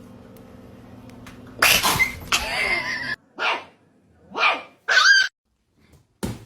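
A dog barking and yipping: one longer loud outburst followed by several short separate barks, over a low steady hum at the start.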